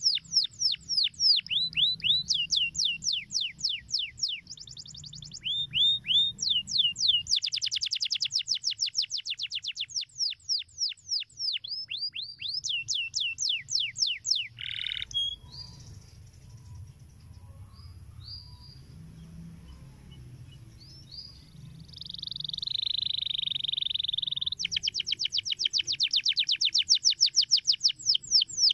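Domestic canary singing: fast rolled trills of repeated high down-slurred notes, about five a second. After the middle it breaks off to a few short notes and a held, wavering note, then the fast trilling starts again near the end.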